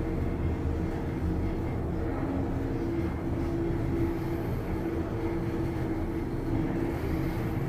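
Toshiba elevator car travelling upward, heard from inside the car: a steady low rumble of ride noise with a faint steady drone over it.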